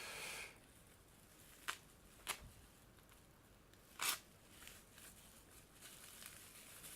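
Knife packaging being worked open by hand: a short tearing rustle at the start, then a few sharp clicks and snaps, the loudest about four seconds in.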